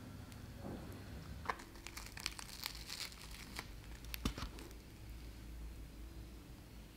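A coffee bun with a crisp topping torn apart by hand, the crust and bread crackling in a cluster of small crisp clicks in the first half, with a few more soon after.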